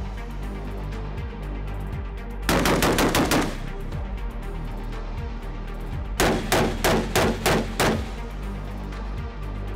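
Semi-automatic carbine gunfire: a fast string of shots about two and a half seconds in, then after a pause a second string of about six shots fired a third of a second apart, over background music.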